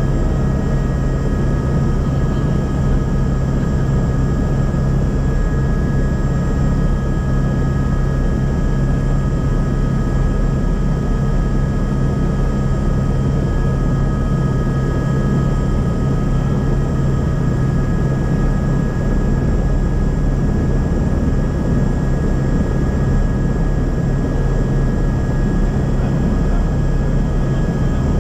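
Helicopter in flight: a steady, loud drone of engine and rotor with a constant low hum and a few steady higher whining tones.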